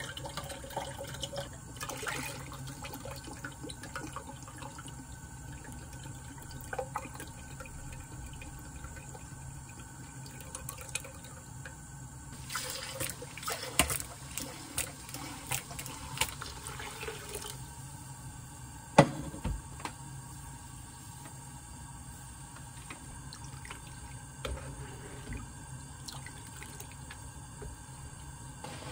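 Water running and splashing at a kitchen sink, with small clicks and knocks of dishes or utensils. The water and clatter are busiest for several seconds near the middle, and one sharp knock comes about two-thirds of the way through.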